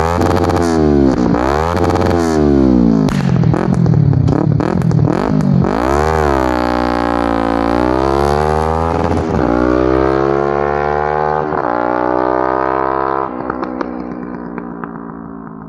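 Kawasaki ER-5's parallel-twin engine revving through a shortened stock muffler: several quick blips of the throttle, then slower rises and falls in revs. About thirteen seconds in it drops back to a steady idle that gets quieter toward the end.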